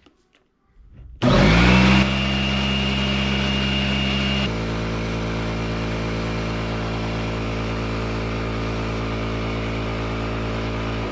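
Electric Husky air compressor motor and pump starting abruptly and running steadily to fill the tank, with a high whine that drops out a few seconds in. It shuts off near the end on reaching full tank pressure, with the leaking hose clamp now replaced.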